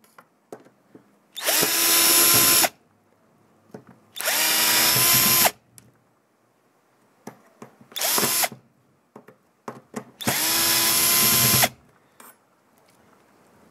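Power drill/driver backing out the screws that hold an old RV roof bathroom vent fan in place. It runs four times, three of a little over a second and one short, each spinning up quickly to a steady whine, with small clicks of handling in between.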